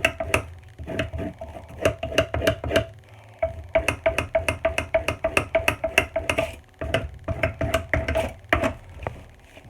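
Serrated knife drawn quickly back and forth through a block sharpener: a fast run of rasping strokes, about four or five a second, with the steel blade ringing on each pass. The strokes stop briefly about three seconds and again about seven seconds in.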